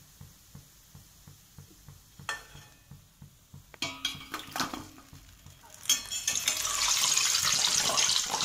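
A steel ladle clinks against a metal pot a few times, then a loud hissing sizzle lasts about two and a half seconds as freshly fried gulab jamuns, hot from the oil, go into the sugar syrup.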